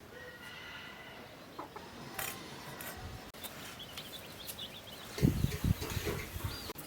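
Birds chirping and calling, with a few loud low thumps about five seconds in.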